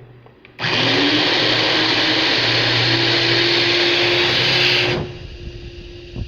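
Electric blender grinding onion, garlic and spices into a seasoning paste. It starts suddenly, runs steadily for about four seconds with its motor pitch rising slightly as it speeds up, then cuts off.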